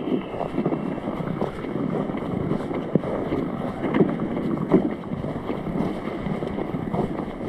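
Wind buffeting the microphone outdoors, with irregular crunches and knocks scattered through it.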